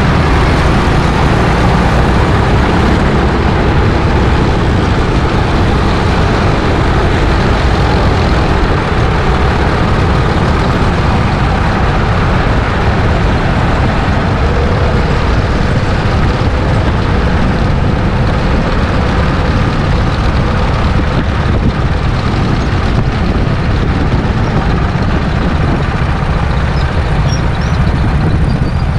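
Go-kart engine and rushing road and wind noise heard from an onboard camera, loud and steady, as the kart slows off the track into the pit lane.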